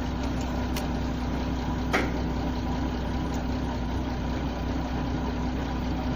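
Hitachi ZX210 excavator's diesel engine idling steadily, with a sharp metallic click about two seconds in.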